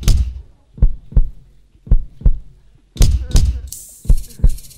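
Deep heartbeat-like double thumps, a pair about once a second, with a bright hissing swish near the end.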